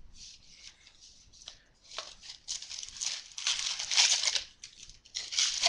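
Plastic wrapping and cardboard of a trading card box being torn open and handled, a run of crinkling, tearing rustles, the longest and loudest from about two and a half to four and a half seconds in, with a shorter one near the end.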